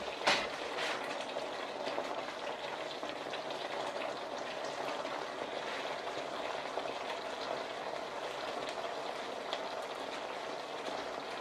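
Thick beef-and-tomato bolognese sauce simmering in a deep pan, a steady bubbling, spattering sizzle. Two light knocks come in the first second.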